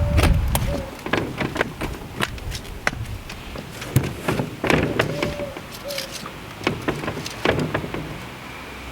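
Irregular clicks and knocks of G gauge garden railway track sections being handled and fitted together by hand, with a few short squeaks.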